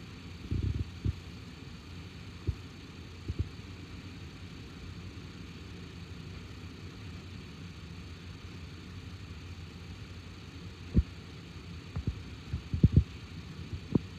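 A 2004 Acura MDX's V6 engine idling steadily, a low hum, while it is checked for a random misfire. Several short low thumps come through it, most of them about two-thirds of the way in and near the end.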